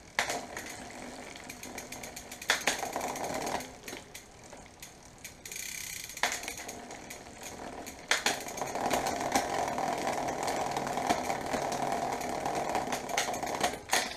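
Bicycle drivetrain turning in a repair stand: the chain runs over an 11-32 rear cassette through a SRAM short-cage rear derailleur with a steady rattling whir, and several sharp clicks come as the gears are shifted. The chain is slow to shift down off the largest cog and takes a couple of shifts to come down, a shifting fault left after a longer B-adjustment screw was fitted to clear the larger cog.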